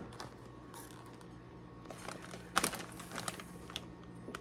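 Scattered light clicks and taps of handling, with a short cluster of them about two and a half seconds in.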